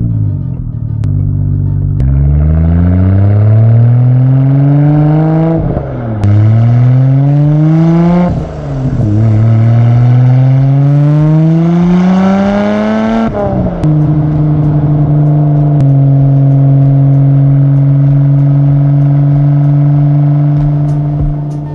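Nissan Skyline R32 GT-R's twin-turbo straight-six accelerating hard through the gears. The engine note climbs and drops sharply at each of three upshifts, then holds steady at cruising revs for the last several seconds.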